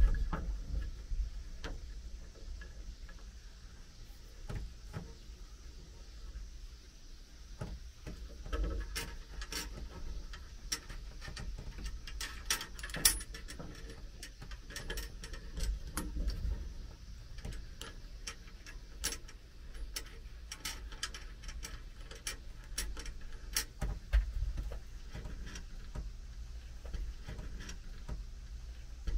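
Small hardware handled and fitted by hand: scattered light clicks and taps as a screw, washer and locknut are set into a plastic shock cord guide on a slotted metal rail, over low bumps of handling. The clicks come thickest in the middle stretch.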